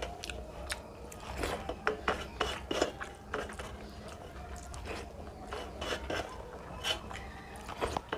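Fingers squishing and mixing rice into thin fish curry against a metal plate, with many small irregular wet clicks and scrapes, mixed with chewing sounds from the eater's mouth.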